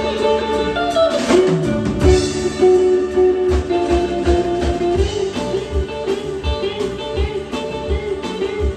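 Live band playing without vocals: guitar notes, including a sliding note about a second in, over bass, with a steady kick-drum beat and cymbals.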